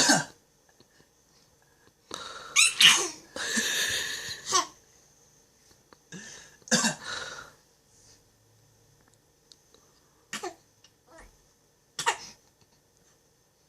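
A 4½-month-old baby making fake coughs: a run of short, breathy coughs, then a couple more, then single brief ones spaced a few seconds apart.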